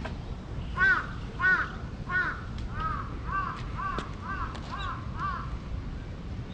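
A crow cawing nine times in a row, the first three calls loudest and about two-thirds of a second apart, the rest softer and quicker.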